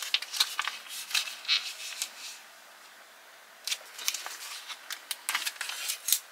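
Foil-laminate MRE retort pouch being torn open and pulled apart by hand: sharp crinkling and crackling in two spells, with a quiet pause of about a second and a half in the middle. The pouch's layers are separating as it tears.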